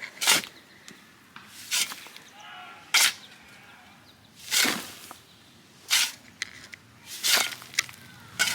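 Shovel scooping dirt and dropping it back into a fence-post hole around a newly set post: about seven short noisy strokes, roughly one every second and a half.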